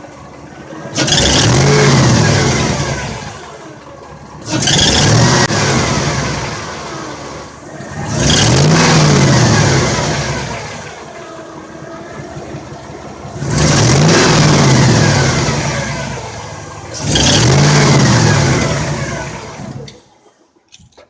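2002 Chevrolet 8.1-litre Vortec V8 revved five times, each blip rising sharply and falling back toward idle, with the sound cutting off abruptly near the end. The engine is being run to bring out a rattle that the owner is trying to diagnose.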